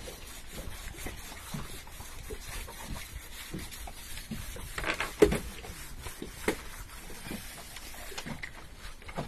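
Gloved hands handling and rubbing a green sea turtle's shell on a boat deck: scattered knocks and rubs over a steady hiss of wind and sea, with the loudest knocks about five seconds in and again shortly after.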